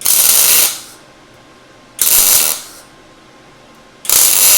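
MIG welder tack welding 18-gauge sheet steel: three short bursts of arc crackle, each under a second, about two seconds apart.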